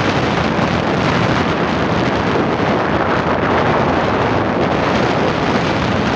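Steady rush of wind buffeting the microphone of a moving motorcycle, blended with road noise.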